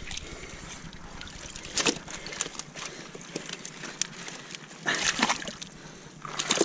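Shallow seawater sloshing and dribbling as stones are lifted and turned over in a rock pool among wet kelp, with a few sharp knocks of stone and a louder rush of water about five seconds in.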